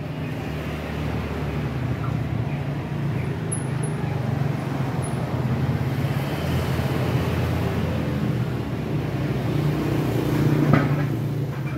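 A motor running steadily with a low hum, with one short knock near the end.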